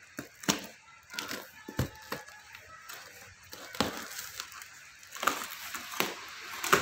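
Clear plastic wrap on a cardboard shipping box being cut and torn open by hand: irregular crackling and rustling with sharp clicks, busier and louder in the last couple of seconds.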